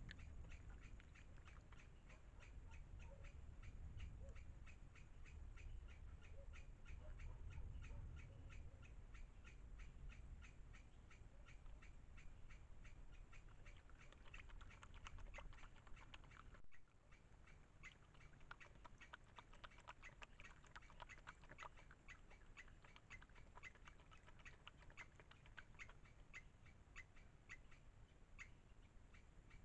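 Faint night chorus: a steady, rapid, even pulsing of calls several times a second, over a low rumble. The low rumble eases a little just past halfway.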